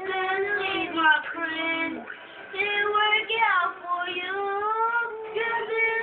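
A young child singing in long held notes that slide up and down in pitch, with short breaks between phrases.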